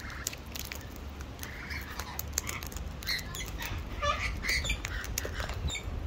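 Sulphur-crested cockatoos feeding with their beaks in hand-held plastic pots: a run of quick irregular clicks and taps, with a few short soft calls between about three and five seconds in.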